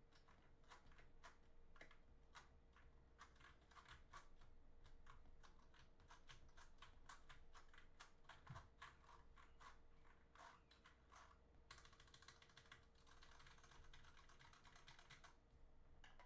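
Faint keys of a mechanical keyboard clicking in quick, irregular presses, with a denser rapid flurry about twelve seconds in.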